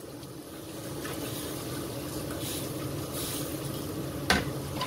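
A metal ladle stirring chicken broth in a metal wok, the liquid swishing, over a steady low hum; a sharp knock of metal on metal near the end.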